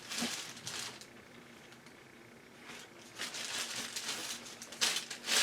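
Rustling and handling of packaging and loose hardware, in two irregular bursts near the start and from about three seconds in.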